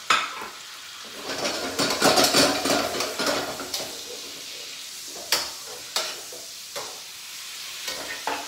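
Chicken pieces sizzling as they stir-fry in a wok, with a metal utensil scraping and tossing them, busiest between about one and four seconds in. Sharp clinks of metal on the wok come at the start and a few times later.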